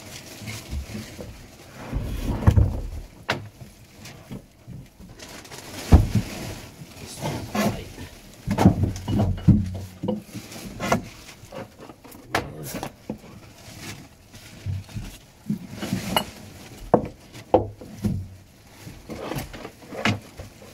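Irregular knocks, clunks and rattles of hard objects being handled and set down in a boat's battery compartment, with a few louder thuds.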